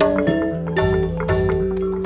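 East Javanese gamelan ensemble playing the accompaniment for a Remo dance: bronze metallophones and gongs ring out held notes of a melody over quick, repeated strikes.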